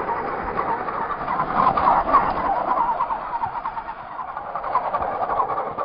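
Electric drivetrain of a radio-controlled rock crawler whining as it drives over ice and snow, its pitch wavering with the throttle.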